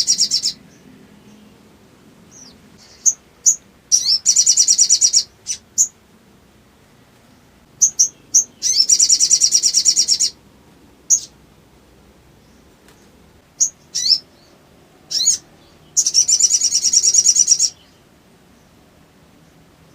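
Sogon (sogok ontong), a spiderhunter, singing: short sharp high chips, with rapid high trills of about a second and a half each, four times. This is the fast repeated 'nembak' song.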